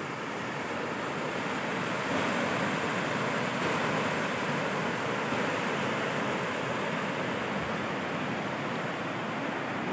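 Water spilling over the long concrete crest of a check dam, a steady rush of white water.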